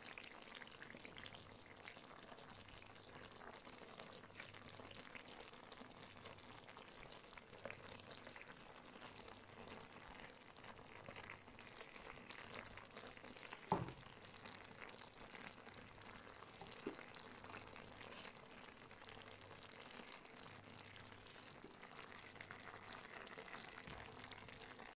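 Faint sizzling and bubbling of dried figs, garlic and onions simmering in oil and broth in a clay tagine over a charcoal brazier. A single sharp knock comes about 14 seconds in, with a lighter one a few seconds later.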